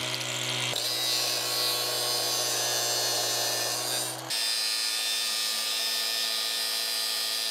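Cordless angle grinder with a steel cutting wheel running steadily as it cuts through the steel tube of a tractor PTO shaft. The sound brightens about a second in as the wheel bites and changes abruptly about four seconds in.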